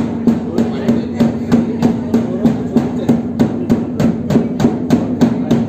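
Two-headed barrel drum (dhol) beaten with a stick in a steady, even rhythm of about four strokes a second, over a steady low hum.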